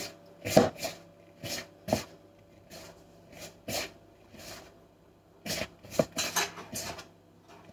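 Fingertips rubbing butter into flour in a plastic mixing bowl: an irregular series of short rustling scrapes and light taps against the bowl, bunched together about five and a half to six and a half seconds in. The mixture is being worked to a breadcrumb texture.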